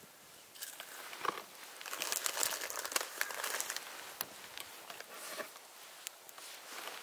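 Irregular crinkling and rustling as gloved hands handle slices of raw yellowtail on a paper towel, with a few light clicks, loudest around the middle and fading after about five seconds.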